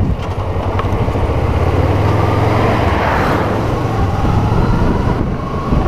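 An oncoming truck passes close by, its noise swelling to a peak about three seconds in and then easing. Underneath, the rider's Kawasaki Versys 650 parallel-twin engine runs steadily.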